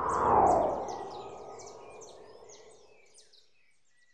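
A swelling whoosh that peaks about half a second in, with a falling sweep, then fades away over a few seconds. Behind it a bird chirps rapidly and repeatedly, fading out toward the end.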